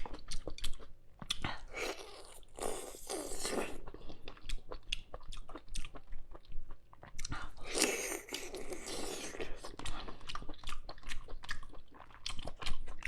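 Close-up chewing and biting of cooked cat's eye sea snail meat and roe: a steady run of short wet clicks and smacks, with two longer, noisier stretches about three and eight seconds in.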